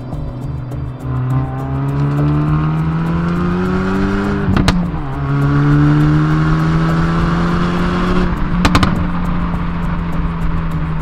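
Hyundai i30 N Fastback's 2.0-litre turbocharged four-cylinder accelerating hard. The engine note rises twice and drops at each upshift, with a quick crackle of exhaust pops at each shift, then holds steady.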